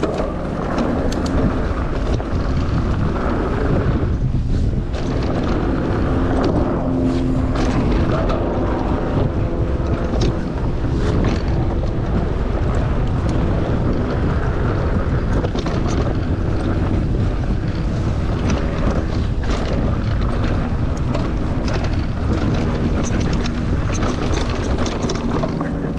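Wind buffeting the microphone over the steady rumble and rattle of a mountain bike riding a dirt trail, with scattered clicks and knocks from the bike.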